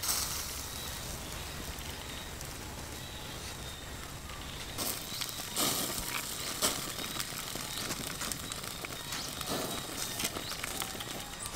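Whole fish grilling on a wire rack over a charcoal fire: a steady sizzle with sharp crackles and pops from the embers, more frequent from about halfway through.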